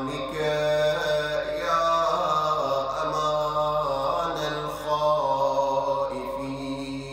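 A man chanting an Arabic Ramadan supplication (du'a) solo, drawing out each syllable into long, held melodic notes that bend from pitch to pitch without pause.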